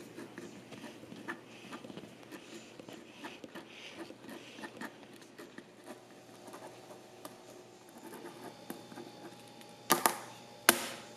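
Pilot G2 gel pen scratching lightly across lined notebook paper as it writes. Near the end come two sharp clicks a little under a second apart as the pen is handled.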